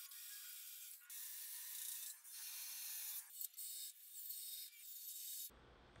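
Wood being abraded by hand: scratchy rubbing strokes of about a second each, with short breaks between them. About half a second before the end, a duller, lower noise takes over.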